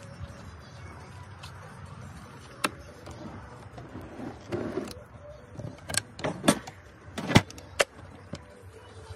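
Clicks and knocks of a hinged storage-box lid being unlatched and lifted open in a pickup's camper canopy. Scattered clicks, then several sharp knocks in the second half, the loudest about seven seconds in.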